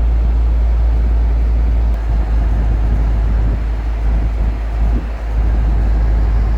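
A car driving along a highway, heard from inside the cabin: a steady, loud low rumble of engine and road noise, dipping briefly about five seconds in.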